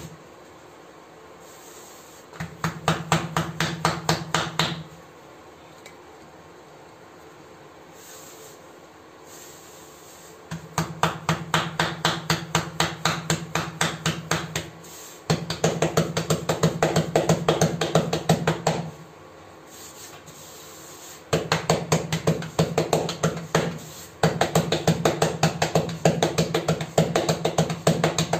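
Palms rapidly patting rotti dough flat on a floured board: runs of quick, even slaps a few seconds each, stopping briefly between runs.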